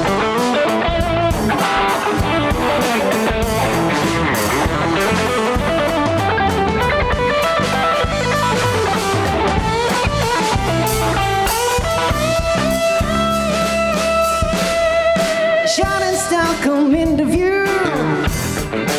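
Live funk band playing an instrumental break: an electric guitar lead with long held, wavering notes and pitch bends near the end, over bass guitar and drum kit.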